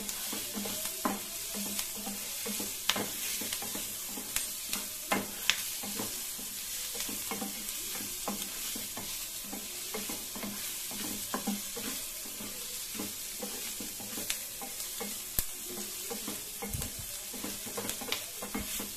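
Chopped onion and green capsicum sizzling in oil in a nonstick pan, stirred with a wooden spatula that scrapes and taps against the pan every second or so.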